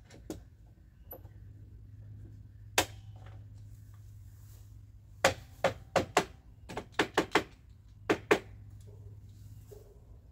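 A chalk line box being beaten to coat its string with chalk: one sharp knock, then a quick run of about ten knocks a few seconds later.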